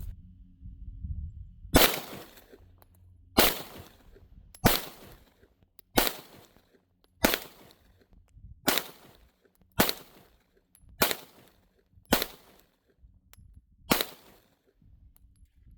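Glock 43X 9mm pistol firing ten single shots at a slow, deliberate pace, about one every second and a half.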